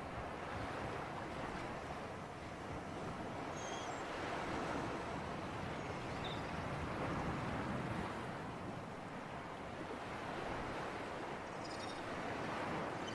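Sea surf and breeze: a steady wash of waves that swells and eases slowly, with a few faint high chirps now and then.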